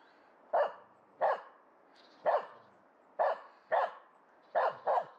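Finnish Spitz barking at a squirrel up in a tree, seven short, sharp barks at an uneven pace of about one or two a second, sometimes in quick pairs. The dog wears a protective cone collar.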